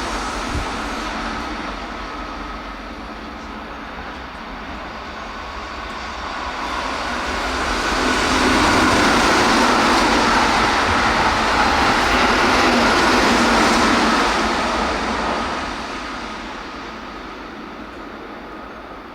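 Keihan 8000 series limited-express train passing through at about 109 km/h: a rushing wheel-and-rail noise swells up, holds at its loudest for several seconds in the middle, then fades away. At the start, the tail of an earlier passing train dies away.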